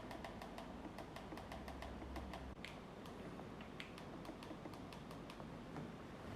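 A run of light, sharp clicks and taps at irregular spacing, a few each second, over a quiet background.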